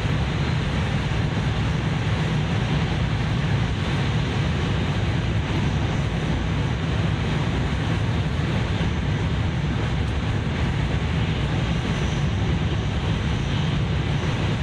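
Steady low rumble and rushing noise inside the passenger cabin of a Tohoku Shinkansen Hayabusa bullet train running at speed.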